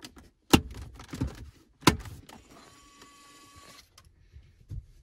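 Plastic dash trim clips snapping into place as a trim piece is pressed back onto the center stack: two sharp snaps about a second and a half apart, with a softer click between them. A steady whirring hum follows for about a second and a half.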